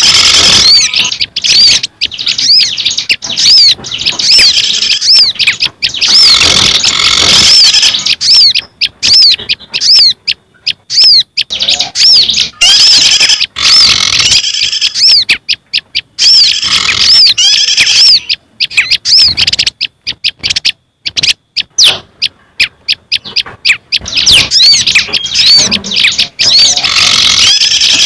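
Bird-lure recording mixing the calls of several small garden birds (prenjak, ciblek gunung, sirtu and sogok ontong). Rapid, high, repeated arching chirps come in dense bursts a few seconds long, with short gaps between them.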